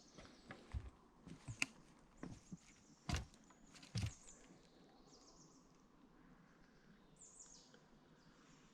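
Scattered knocks and clicks, the two loudest about three and four seconds in. After them comes quiet outdoor ambience with a few faint, high, falling chirps near the end.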